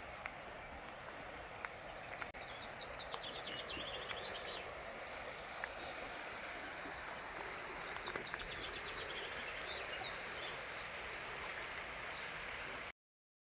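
Steady rushing of a mountain river and small waterfall, with forest birds singing over it: quick high trills about three seconds in and again about eight seconds in, and a few scattered chirps. The sound drops out to silence for about half a second just before the end.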